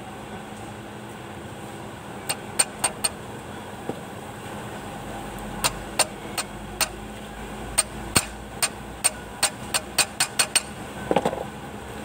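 Sharp metallic taps of a small hammer driving a pin into the coupling sleeve on a tractor's propeller shaft. Four taps come first, then about a dozen more that come faster toward the end, followed by a brief scrape, over a steady low hum.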